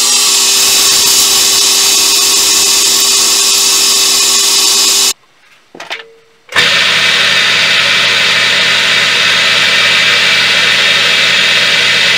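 Wood lathe running with an ash handle spinning, held against hand-held paper for a steady hiss of sanding over the motor's hum. About five seconds in the sound drops to near silence for about a second and a half, then the lathe runs again, at a lower hum, as the turning handle is rubbed again.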